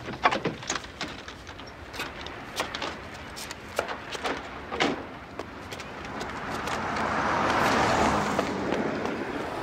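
A string of sharp clicks and knocks in the first half, then a car passes close by, its noise rising to a peak near the end and fading.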